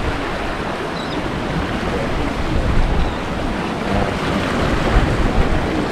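Strong wind buffeting the microphone with a low rumble, over the steady wash of surf and water at an inlet.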